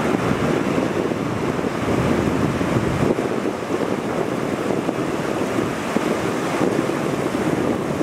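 Sea surf breaking and washing in the shallows, a steady rushing noise, with wind buffeting the microphone.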